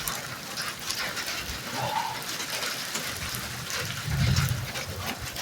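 Fine crackling sizzle of burger grease in a hot grilled cheese machine, with a brief squeak about two seconds in and dull knocks of handling around four seconds in.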